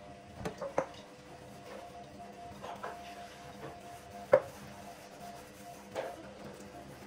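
Several sharp knocks and clicks at irregular intervals, the loudest about four seconds in, over a faint steady hum.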